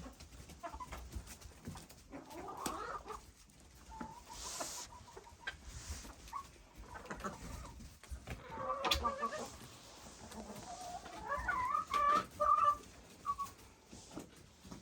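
Chickens clucking in scattered calls, with louder flurries about nine seconds in and again around twelve seconds.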